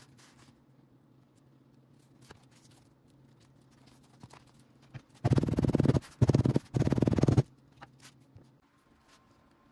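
A small electric machine running in three short bursts, close together, with faint taps of handling before and after.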